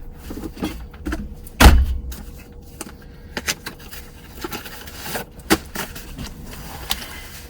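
Small hand tools being rummaged through and handled on a work surface: a string of clicks and knocks, with one loud thump about a second and a half in.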